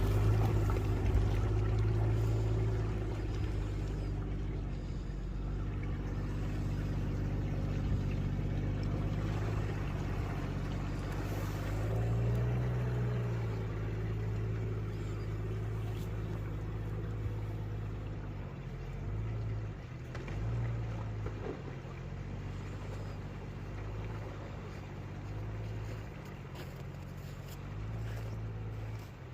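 Jeep Cherokee engine running steadily as it drives off-road, revving up once about twelve seconds in and easing back, with further brief swells in revs later on.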